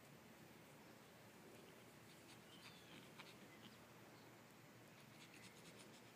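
Near silence: faint outdoor background with a few brief, faint high chirps or ticks, a cluster in the middle and more near the end.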